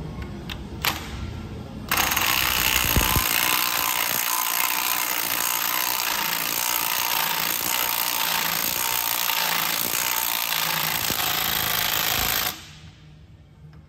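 A power tool runs loud and steady for about ten seconds, starting abruptly about two seconds in and cutting off suddenly near the end.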